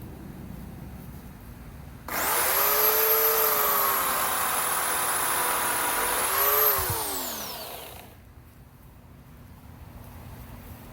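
Bauer 16-inch, 14.5-amp corded electric chainsaw switched on about two seconds in. Its motor whines at speed for a few seconds with a slight sag in pitch, then is released and winds down, its pitch falling until it stops.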